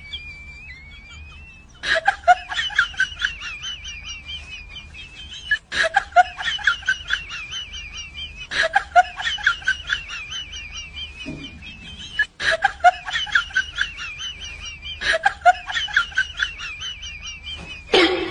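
A short high-pitched cackling sound clip, looped so that it repeats about every three seconds, each repeat opening with a click followed by a run of quick warbling pulses.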